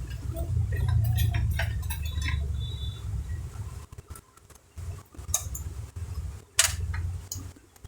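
Light clinks and taps of small hard objects being handled on a workbench, over a low rumble from handling.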